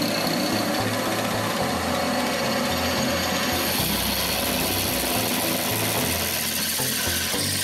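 Bench drill press running with its twist bit cutting into a steel plate, a steady grinding whir of motor and cutting. The cut takes on a harsher, hissier edge from about halfway through.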